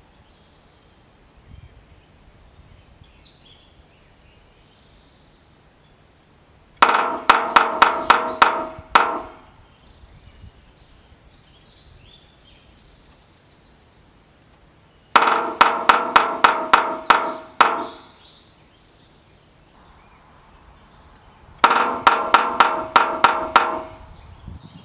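Red-breasted sapsucker drumming on a steel gutter drain: three bouts of sharp metallic strikes with a ringing tone, each opening with a quick run and slowing into spaced strikes.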